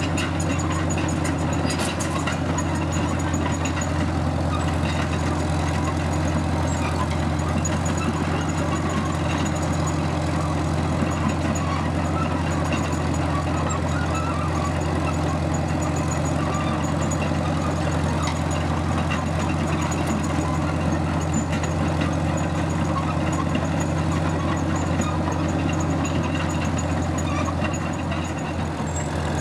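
Small Caterpillar crawler tractor's engine running steadily as the machine drives slowly along on its tracks.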